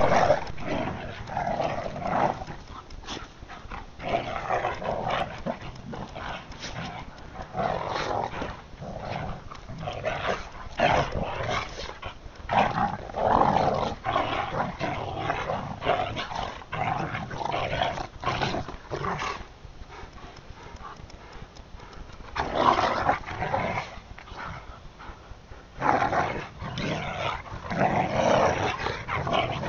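Two dogs, a Rottweiler and a husky-type dog, play-fighting: rough growls and snarls come in repeated bouts of a second or two, separated by short quieter gaps.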